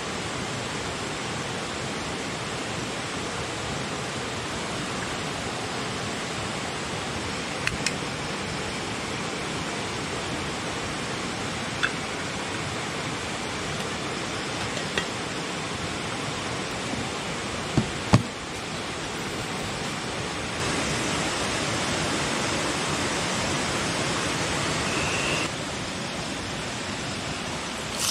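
Steady rushing of a river, with a few light clinks and knocks of cooking utensils now and then. In the last third a louder, brighter hiss comes in for about five seconds and cuts off suddenly.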